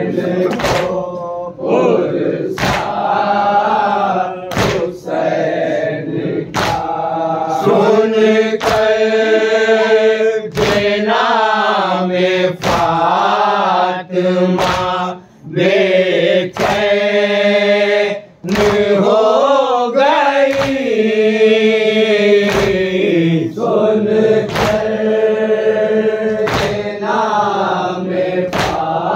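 A group of men chanting an Urdu nauha, a Muharram lament for Husain, in unison, led by a reciter at a microphone. Rhythmic chest-beating (matam) strikes land about once a second under the chant.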